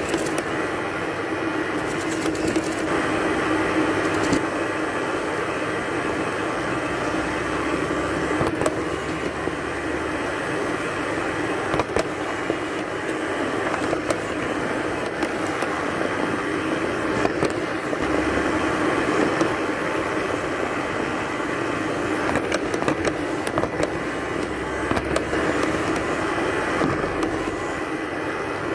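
Robot vacuum cleaner running: a steady whir of its suction motor and spinning brushes, with occasional light clicks and knocks.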